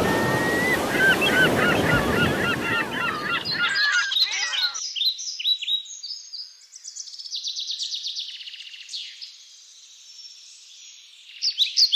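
A flock of birds calling over loud wind and surf noise. After about four seconds it cuts abruptly to a different recording of rapid, high-pitched bird calls and trills without the background noise, which fade to faint calls near the end.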